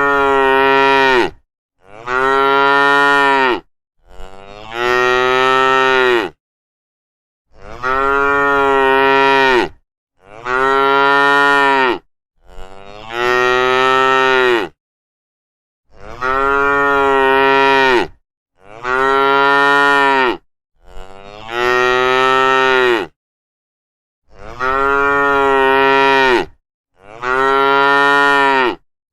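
Cows mooing: a string of about eleven long, steady moos, each lasting about two seconds, with complete silence between them.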